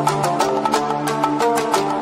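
Background music with a steady beat over held notes.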